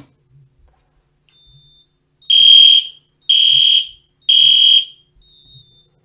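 Fire alarm sounder going into alarm: a fainter high beep, then three loud high-pitched beeps about a second apart, then a fainter beep.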